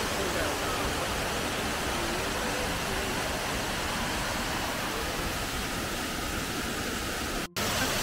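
Waterfall rushing: a steady, even noise of falling water, which drops out for a split second near the end.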